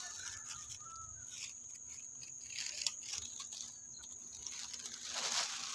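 Outdoor ambience: a steady high-pitched insect drone with a few faint bird chirps early on, and soft rustling of dry grass and vines being handled, a little louder about five seconds in.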